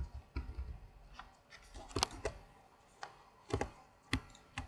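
Computer mouse and keyboard clicks: about eight short, sharp clicks at irregular intervals.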